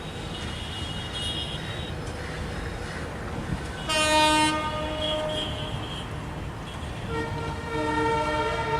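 Locomotive horn sounding two blasts, a loud one about four seconds in lasting about a second and a half and a second starting near the end, over the steady rumble of a train running on the track.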